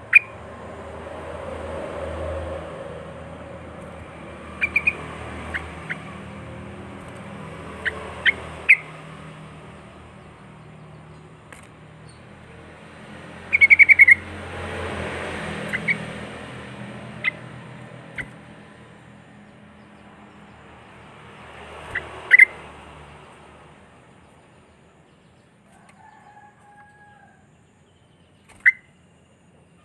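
Sooty-headed bulbul (trucuk) giving short, sharp chirping calls at irregular intervals, with a quick run of notes about 14 seconds in. Behind them are a steady hiss and a low hum.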